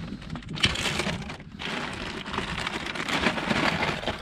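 Close crackling and rustling of gear being handled, full of small clicks. It starts about half a second in, with a short break about a second and a half in.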